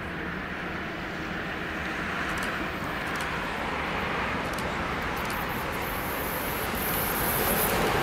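Container freight train hauled by a DB Class 185 electric locomotive approaching, its rumble growing steadily louder as it nears. A high hiss from the wheels on the rails joins in over the last few seconds.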